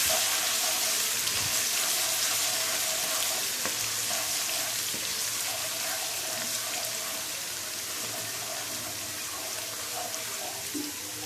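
Ginger-garlic paste and cumin seeds frying in hot oil in a nonstick wok, a steady sizzle that slowly quietens, while a wooden spatula stirs them.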